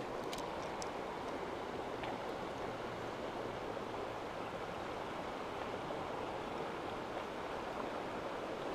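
Fast-flowing river water rushing steadily past the bank, with a few faint clicks about a second in.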